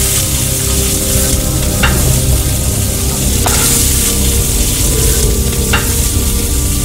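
Food sizzling on a hot griddle: a loud, steady frying hiss with three sharp pops spaced through it.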